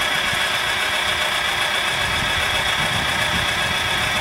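Homemade electric outboard motor built from an angle grinder, running at a steady speed: a high-pitched motor whine that holds one pitch throughout.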